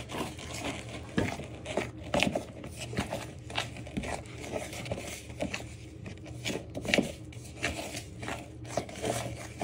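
A spoon scraping and clicking around a plastic mixing bowl in quick, irregular strokes, stirring icing sugar just wetted with a little water into a stiff, crumbly paste.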